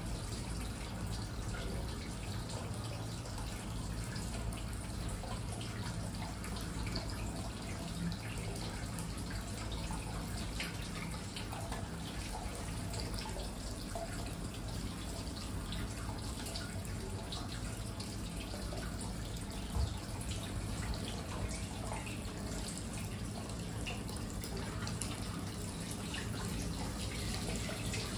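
Hot-spring water running steadily from a stone spout into a stone bath, with small drips and splashes.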